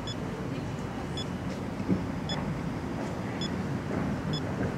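Five short high electronic beeps, about a second apart, from a phone's Wi-Fi signal meter sounding off the strength of the 2.4 GHz signal, over a steady low outdoor rumble.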